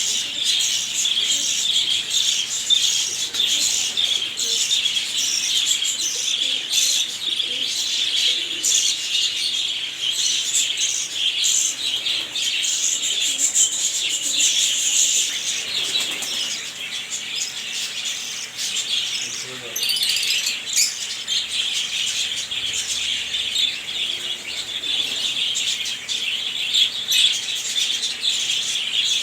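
A crowd of small birds chirping and chattering continuously, many calls overlapping at once.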